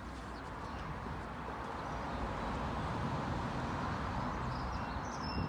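Road noise of a vehicle passing nearby: a smooth rushing that slowly swells to a peak midway and fades again.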